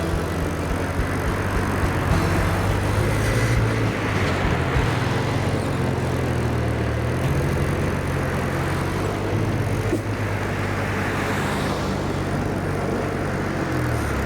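Toyota A70 Supra engine running steadily, its pitch shifting up and down a little now and then.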